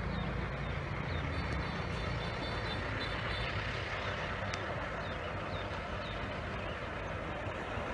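Outdoor traffic ambience: vehicle engines running in the background, with a low hum that fades about a second in, over a steady noise.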